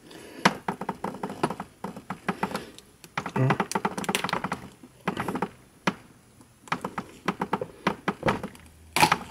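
Plastic housing of a JBL GO 2 portable speaker clicking and creaking as gloved hands press and work it to push out the inner assembly: clusters of sharp clicks and taps, the loudest near the end.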